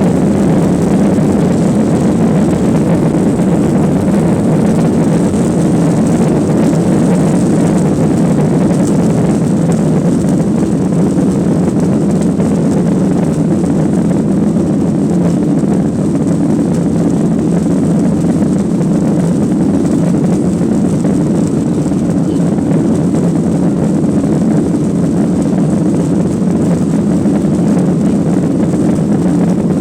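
Steady, unbroken engine and airflow noise inside the cabin of a Boeing 737-900ER with CFM56-7BE turbofans, heard from a rear seat while the jet is airborne.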